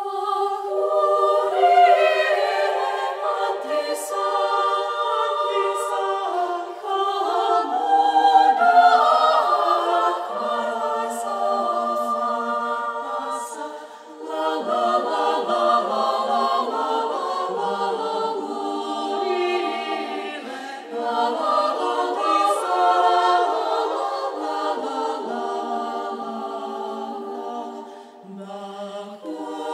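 Women's choir singing a cappella in several voice parts, held chords moving together, entering together at the start. The sound dips briefly between phrases about halfway through and again near the end.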